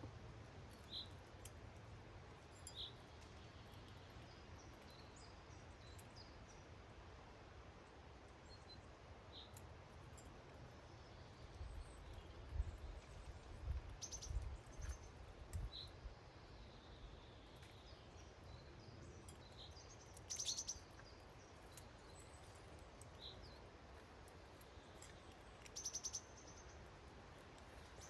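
Faint, sparse small-bird chirps, with a few quick rattling call trains. A cluster of low thuds comes about halfway through.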